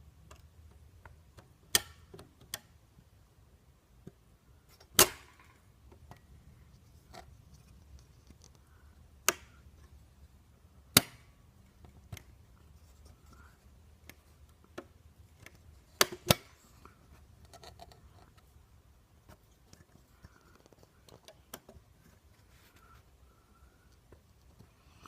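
Scattered sharp clicks and knocks from a Remington typewriter's metal mechanism being handled, a handful of louder ones spread seconds apart, including a quick double click, over a faint background.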